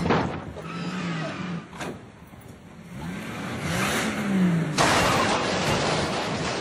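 A van's engine revved up and down several times, each rev a rising then falling drone. About five seconds in, a sudden louder rush of noise sets in as the van accelerates away.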